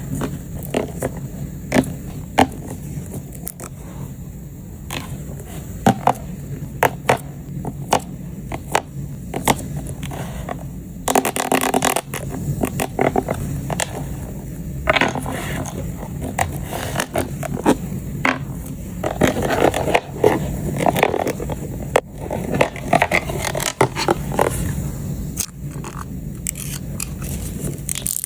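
Batteries being set one by one into a plastic storage case: a run of sharp clicks and clatters of the cells against the plastic, broken by a few stretches of denser scraping and rustling.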